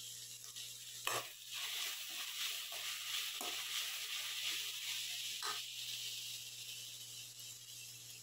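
Chopped drumstick (moringa) leaves sizzling as they stir-fry in an aluminium kadai, the hiss swelling about a second in and slowly dying down. A spatula scrapes and knocks against the pan three times while stirring.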